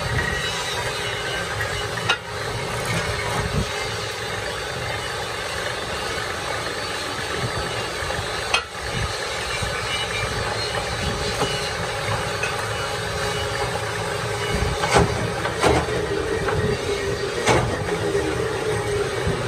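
Lathe running while a cutting tool turns the edge of a steel truck tyre rim: a steady machining noise with a few sharp clicks.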